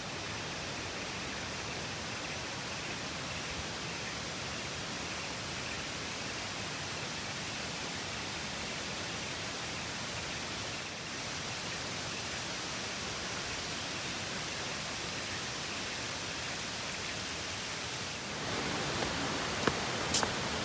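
A waterfall's water rushing in a steady, even hiss of noise. Near the end it grows a little fuller, with a few sharp clicks.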